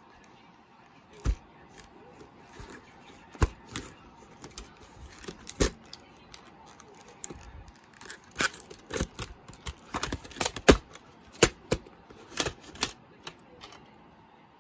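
Hands handling a plastic VHS clamshell case: scattered sharp clicks and taps of plastic, coming thicker in the second half.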